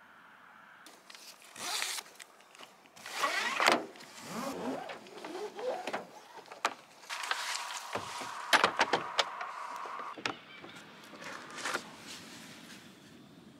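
Gear being handled at a parked car: rustling, sharp clicks and knocks, with a steady whine lasting about three seconds in the middle.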